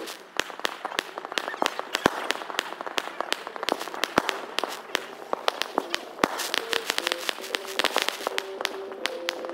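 Fireworks display: aerial shells bursting in an irregular run of bangs and crackles. The cracking gets denser over the last few seconds.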